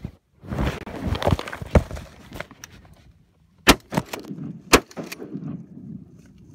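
Rustling and handling noise with scattered sharp clicks, then two sharp knocks about a second apart a little past the middle.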